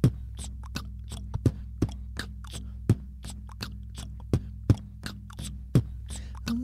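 Looped beatbox beat playing back from a Boss RC-505 loop station: a steady rhythm of mouth-made kick and snare hits with quick hi-hat-like ticks between them, over a constant low bass tone.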